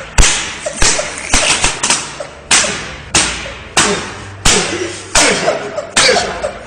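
Hands striking something hard with loud, sharp slaps in a steady rhythm, about three every two seconds, with a few lighter hits between, each slap ringing out briefly.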